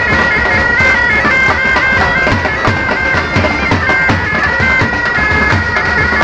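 Pipe band playing: bagpipes carry a stepping melody over a steady drone, with bass drums and marching drums beating a steady rhythm underneath.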